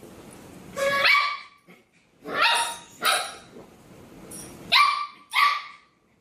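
A dog barking: six short barks, loosely in pairs.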